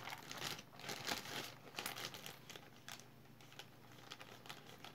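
Faint clicks and rustling of a beaded necklace's metal chain, extender and clasp being worked between the fingers, busiest in the first two seconds.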